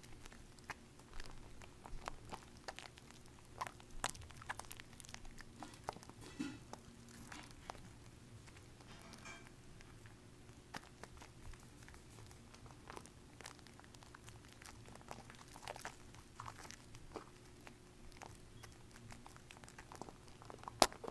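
Wet bar soap being lathered by hand: faint, scattered crackling and squishing of soap foam, busier in the first half, with one sharp click near the end.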